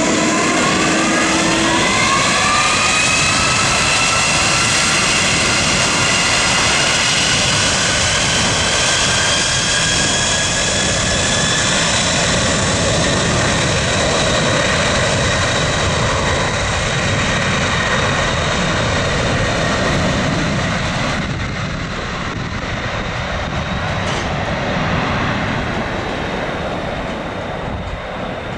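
Airbus A310's jet engines spooling up, with a whine that rises in pitch over about the first ten seconds and then holds at high power amid a steady jet rumble. The aircraft rolls away down the runway, and the sound grows fainter in the last few seconds.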